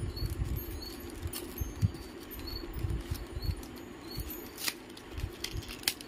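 Hands tearing and crinkling a processor's cardboard-and-clear-plastic blister pack, rustling irregularly with a few sharp plastic clicks.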